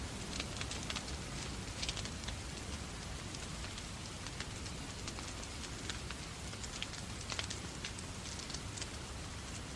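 Wood fire crackling in a fireplace, with irregular sharp pops, over the steady hiss of falling rain.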